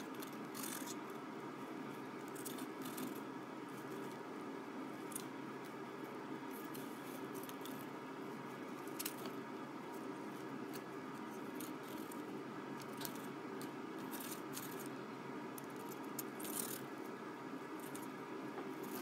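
Irregular short crackles of shredded paper strips rustling as they are handled and worked into a dove's nest, over a steady low room hum.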